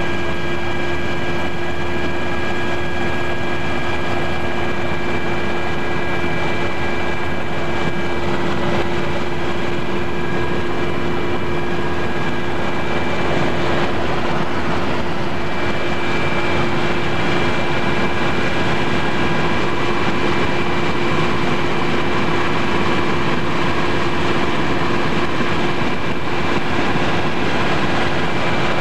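Steady engine drone and rushing air noise heard from inside a small aircraft's cabin in flight, with a constant hum running through it.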